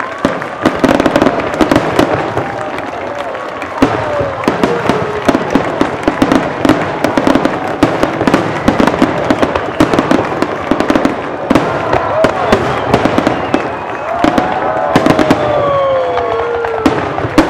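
Fireworks display: aerial shells bursting in rapid succession, a near-continuous run of sharp bangs and crackles.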